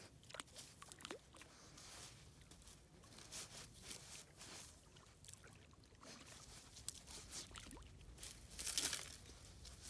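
German Shepherd nosing and pawing at a stick half-buried in sand: faint scuffs and small clicks, with a louder rustling rush a little before the end.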